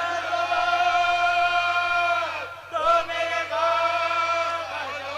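Unaccompanied male voices singing long held notes of an Urdu marsiya lament, in two drawn-out phrases with a short break about two and a half seconds in.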